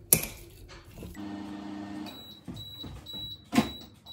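A fork clinks against a mug near the start. Then a microwave oven finishes its cycle: its low hum stops about two seconds in and it gives a series of short high beeps, about two a second, with a knock partway through.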